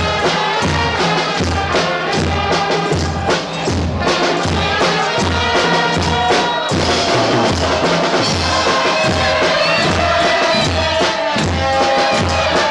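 Festive banda (brass band) music playing, with a steady low beat about twice a second. About seven seconds in, a long high note is held over it.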